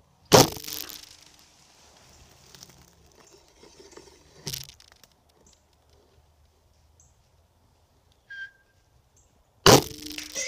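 Gunshots: two very loud shots about nine seconds apart, one just after the start and one near the end, each with a short echo, and a quieter crack in between at about four and a half seconds. A brief high chirp sounds at about eight seconds.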